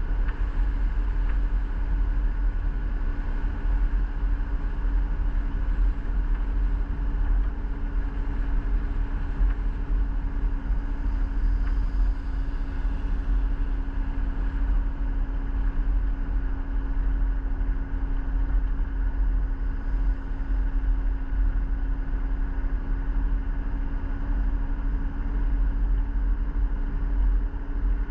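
Motor vehicle driving at a steady speed: a constant low engine and road rumble with a steady hum.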